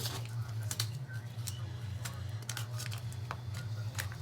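Light, scattered clicks and taps of small metal lock tools and a lock cylinder being handled, over a steady low hum.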